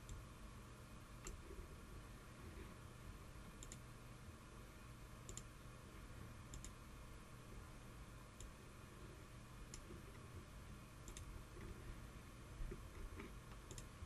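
Faint computer mouse clicks, about ten, spaced irregularly a second or two apart, over a low steady hum of room tone.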